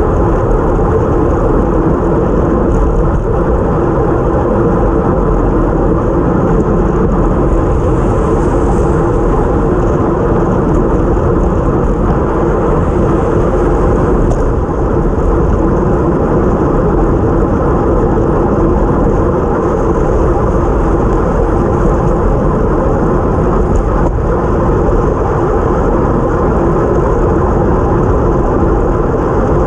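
Steady, loud rush of wind and road noise on a bike-mounted action camera riding at race speed, with tyres running on a wet road.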